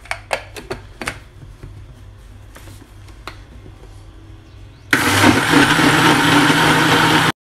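A few light clicks and knocks of handling, then about five seconds in a countertop blender switches on and runs loudly and steadily, blending lemon peel pieces with juice, sugar and water. It cuts off suddenly near the end.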